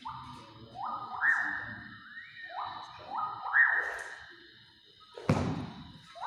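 Music with a sliding, whistle-like lead: short notes that glide up in pitch and hold, in quick phrases. One sharp thud comes about five seconds in.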